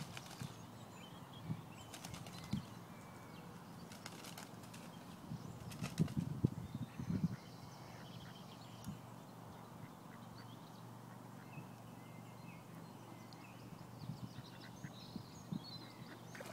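Quiet lakeside ambience: a low, steady wind rumble on the microphone that swells about six to seven seconds in, a few sharp clicks, and faint bird calls near the end.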